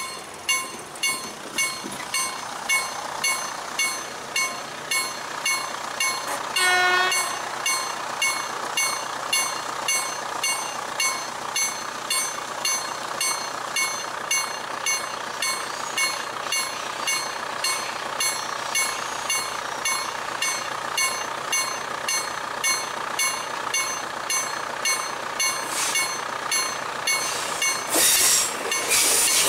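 Level-crossing warning bell ringing steadily, about one and a half strikes a second, as a 22WEd (Pesa Elf 2) electric multiple unit approaches. The train sounds a short horn toot about seven seconds in, and its running noise grows near the end as it draws close.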